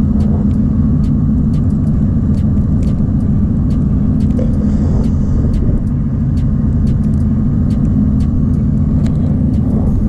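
Blizzard wind buffeting the microphone: a loud, steady low rumble with faint scattered ticks.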